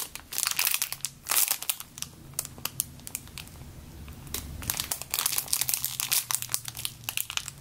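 Clear plastic bag crinkling as hands turn over and press a foam fruit-pizza squishy sealed inside it. The crackling comes in two spells, with a quieter stretch in the middle.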